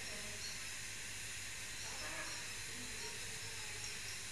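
Steady background hiss with a faint low hum underneath and no distinct sound events.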